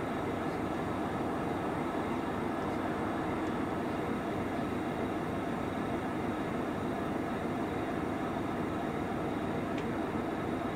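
Steady drone of idling diesel engines, an even rumble with no change in level.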